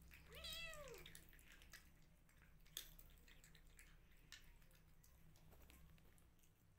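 A kitten gives one short meow, rising then falling in pitch, about half a second in. A single soft click follows a couple of seconds later.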